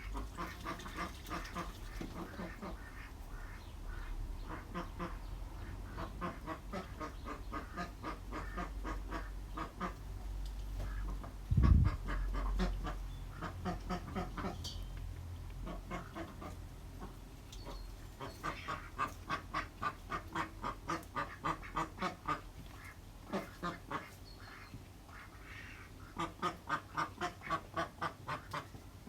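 Ducks quacking in runs of short repeated calls, at times about three a second. A loud low thump comes near the middle.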